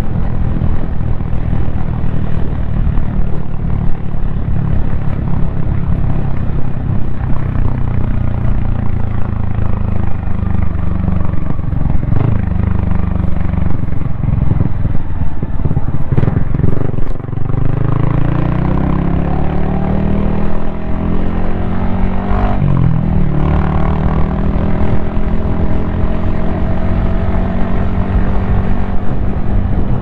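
Yamaha XSR155's single-cylinder four-stroke engine running under way, with heavy wind rush on a helmet-mounted camera. About halfway through the engine note drops briefly and then climbs as the bike accelerates. A few seconds later there is a short dip and recovery in pitch, then steady running.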